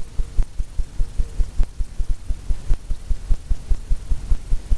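Fan brush tapped rhythmically against a stretched canvas, each tap giving a low drum-like thump, about four or five a second.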